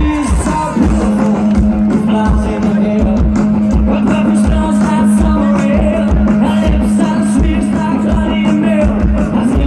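Live punk rock band playing loud through a festival PA, a kick drum beating about twice a second under a long held low note.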